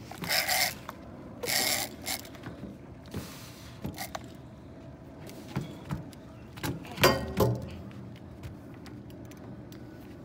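Heavy fishing reel cranking and clicking as a goliath grouper is fought on heavy tackle, with a man's short, loud grunts of effort, the loudest about seven seconds in.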